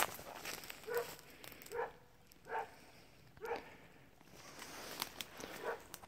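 A dog barking in short single barks, five in a row about a second apart, with a few footstep clicks on the path.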